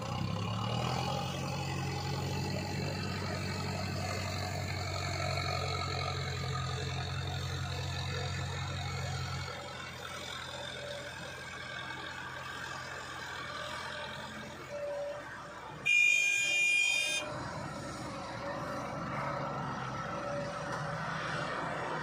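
XCMG XE140 excavator's diesel engine running under load as the machine works, its low hum picking up just after the start and easing after about ten seconds. About sixteen seconds in, a vehicle horn sounds once for about a second, the loudest sound.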